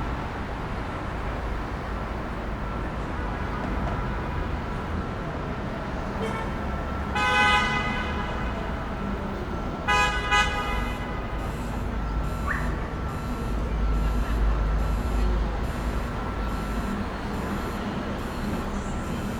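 City street traffic: a steady rumble of passing vehicles, with a car horn honking twice, once about a third of the way in and again about halfway.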